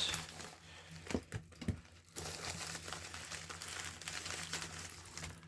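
Packaging being handled and opened, with a few sharp clicks about a second in, then a steady crinkling rustle.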